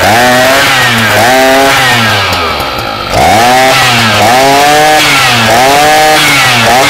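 Kawasaki TJ53 brush cutter's two-stroke engine revved up and down in quick blips about once a second. About two and a half seconds in the revs drop low and the sound dips quieter, then pick back up, and near the end it holds a steady high speed.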